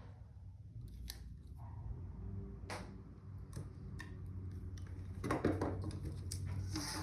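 Spline being pressed into the channel of a window screen frame with a spline roller: scattered light clicks and ticks, a little busier about five seconds in, over a low steady hum.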